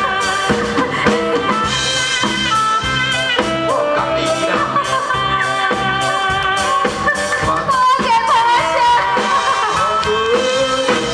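Live band music in a Taiwanese Hokkien pop song: drum kit and bass keeping a steady beat under a lead melody, with a woman singing into a handheld microphone.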